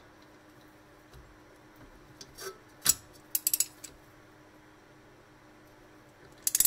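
Metal clinks and clicks from a socket ratchet and extension being fitted and worked on a bolt: one sharp click about three seconds in, then two short bursts of clicking, about three and a half and six and a half seconds in.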